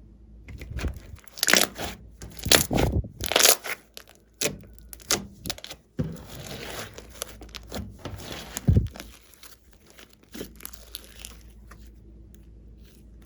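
Fluffy slime squeezed and stretched by hand, giving irregular sharp crackles and pops, with a rougher rustling stretch partway through.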